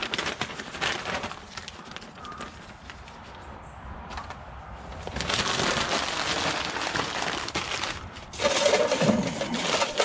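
Newspaper being crumpled and rustled in bursts, then stuffed into the metal bottom of a small charcoal grill as tinder to light the charcoal. The loudest crumpling comes near the end.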